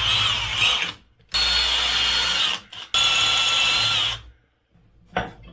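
A power tool running in three bursts of about a second each, with a steady high whine, while the turbocharger vane actuator is being taken apart.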